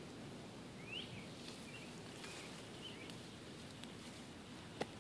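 Faint outdoor ambience with a small bird giving short rising chirps several times, about a second apart. A single sharp click comes near the end.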